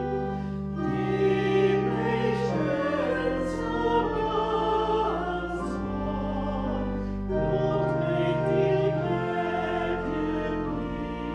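Hymn singing with church organ accompaniment: held organ chords that change every second or two under a singing voice.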